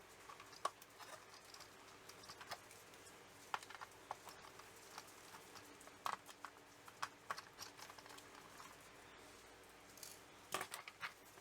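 Faint, irregular small clicks and taps over quiet room tone.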